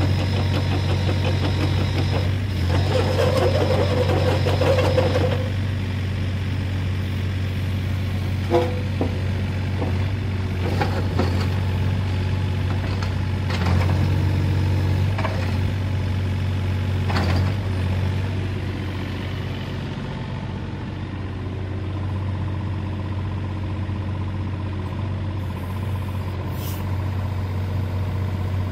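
Hitachi ZX30U-5A mini excavator's diesel engine running steadily while the machine tracks and works its boom. A higher whine comes in a few seconds in, and there are several sharp clanks from about eight seconds in.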